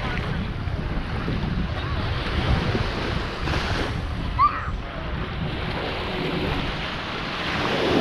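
Sea surf washing with wind buffeting the microphone, a steady rushing noise heavy in the low end. A brief faint distant voice calls out about halfway through.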